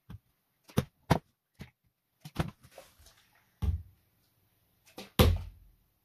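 Irregular light knocks and taps of plastic bottles being handled and set down on a wooden board, with a heavier thump about five seconds in, the loudest of them.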